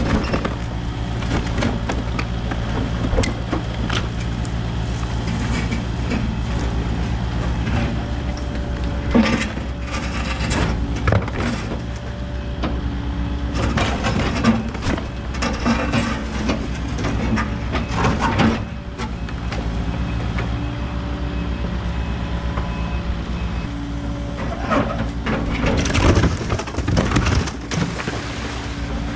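Kubota KX080 excavator's diesel engine running steadily while its bucket breaks and moves concrete, with cracks, knocks and scraping of broken concrete at intervals: a few about nine to eleven seconds in, a cluster a few seconds later, and more near the end.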